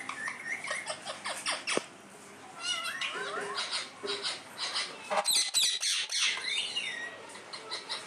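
Rose-ringed parakeets chattering: a run of short chirps, whistled rising and falling calls and squawks, busiest and loudest in a burst of sharp screeches about five to six seconds in.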